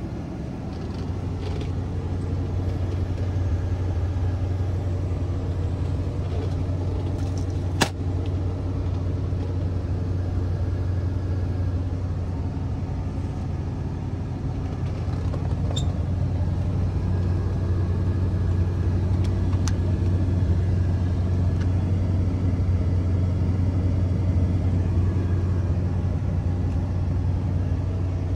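Oldsmobile 455 V8 engine of a 1974 GMC motorhome running, heard from inside the cab as a steady low drone. A single sharp click about eight seconds in.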